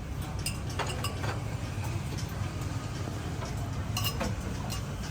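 Dishes, bowls and utensils clinking now and then, with a cluster of sharper clinks about four seconds in, over a steady low background rumble.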